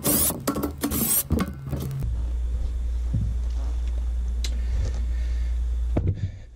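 Cordless drill/driver backing hex-head screws out of the metal plate of a zone damper motor assembly, its motor whirring in short pulsing runs with shifting pitch for about the first two seconds. After that, a steady low hum.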